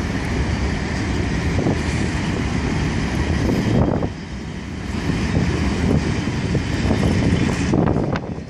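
Freight train wagons rolling past close by: a steady rumble of steel wheels on the rails with scattered clicks and clatter. It dips briefly about four seconds in and again near the end.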